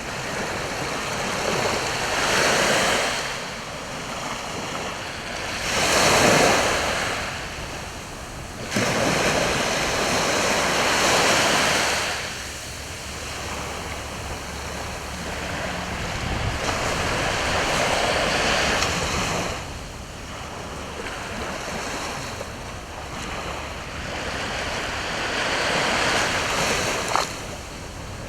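Sea waves breaking on the shore, one after another: every few seconds a rushing surge swells and then fades back.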